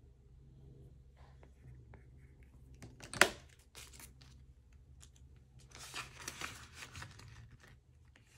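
Paper banknotes and plastic cash envelopes rustling and crinkling as they are handled, with one sharp click about three seconds in.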